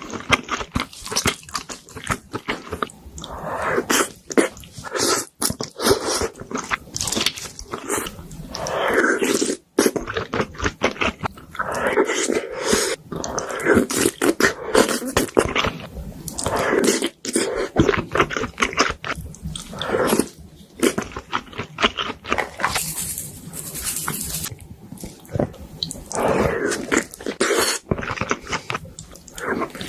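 Close-miked chewing and biting of food: a steady run of wet smacks and sharp mouth clicks, with crunchy bites here and there.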